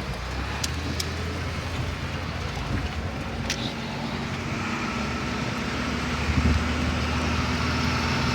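Car running, heard from inside the cabin: a steady low engine hum under a broad hiss that grows louder in the second half, with a few sharp ticks near the start.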